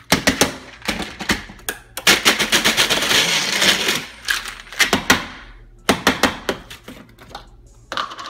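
Frozen strawberries rattling and knocking inside a Ninja blender's single-serve cup as it is shaken and knocked about. The clatter comes in several spells of rapid knocks, the longest lasting about two seconds and starting about two seconds in.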